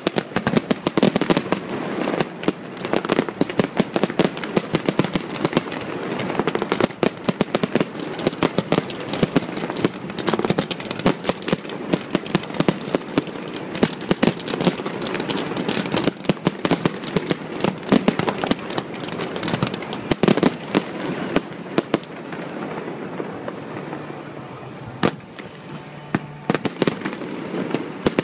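Aerial fireworks shells bursting in quick succession: a dense run of bangs and crackles, many a second, easing off a little in the last few seconds.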